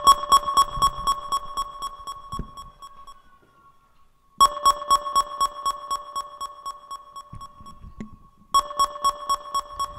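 Electronic beeping played from a laptop and electronics rig through PA speakers: a rapid, even train of pulsed tones over a steady high note. It comes in three stretches: the first fades out after about three seconds, the second starts abruptly just past four seconds, and the third starts again near the end after a short break.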